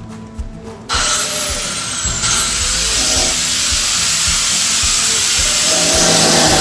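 A power tool cuts into a pickup truck's sheet-metal body, starting abruptly about a second in: a loud, steady rasping hiss with a high whine that falls, then rises and holds. Background music plays under it.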